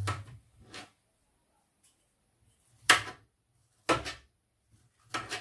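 Kitchen knife cutting through strawberries and knocking on a plastic chopping board: five separate knocks, two soft ones near the start and three louder ones about a second apart in the second half.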